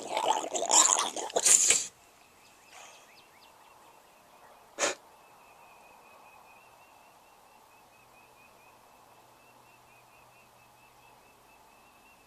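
Loud, harsh breaths and snort-like bursts for about the first two seconds, then a single sharp click about five seconds in. Behind it runs a faint, steady, high chirping.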